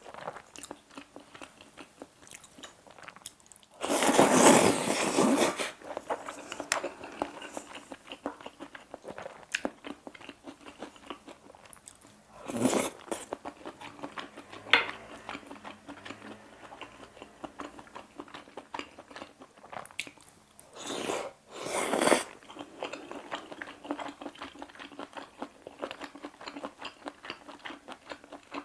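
Close-miked chewing of seafood pasta, a steady run of small wet mouth clicks, broken by louder noisy slurps of the thin noodles about four seconds in, near the middle, and twice around twenty-one seconds in.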